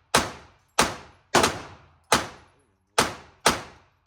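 Gunshots fired one after another, about six in four seconds at an uneven pace, each sharp crack followed by a short echoing tail.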